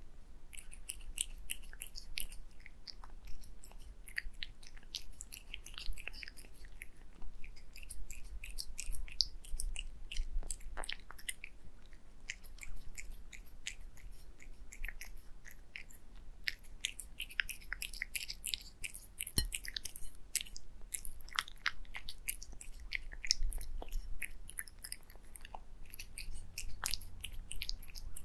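Close-miked black cat eating wet food and egg yolk from a glass plate, licking and chewing with rapid wet smacks and clicks, several a second without pause.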